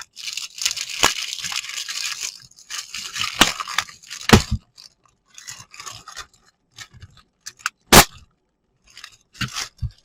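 Packaging crinkling and tearing while a newly unboxed camping fan is handled, followed by scattered light clicks and knocks, with one sharp knock about eight seconds in.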